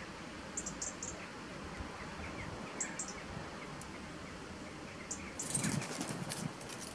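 Small birds chirping faintly, short high notes scattered through, over steady outdoor background noise, with a brief flurry of rustling and clicks near the end.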